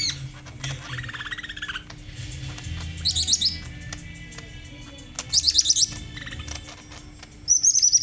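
Caged green leafbird singing in separate phrases. There is a falling run of chattering notes about a second in, quick high trills around three and five seconds in, and a short high whistle near the end, over a faint steady hum.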